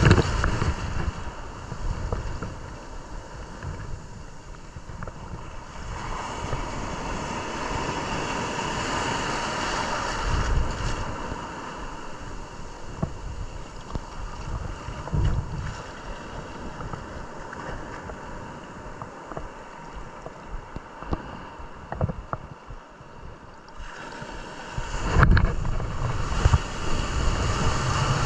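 Ocean surf breaking and washing up the beach, with wind buffeting the microphone in gusts.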